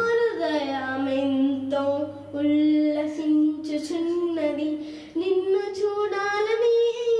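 A girl singing a Telugu song into a microphone, gliding between notes and holding long ones.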